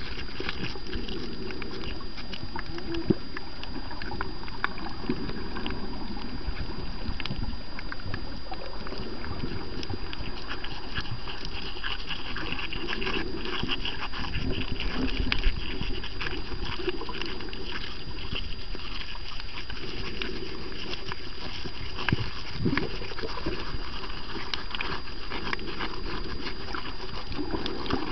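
Underwater reef sound picked up through a camera housing: a constant crackle of short clicks, with low bubbling gurgles every few seconds and a thin steady high tone.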